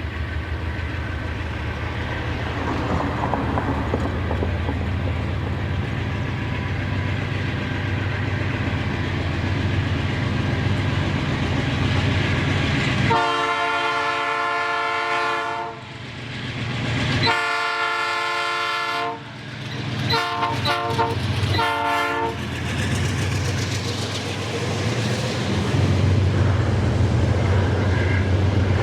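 Diesel freight locomotive and train running past with a steady engine drone and wheel rumble. The locomotive's air horn gives two long blasts, about 13 and 17 seconds in, then three short ones a few seconds later.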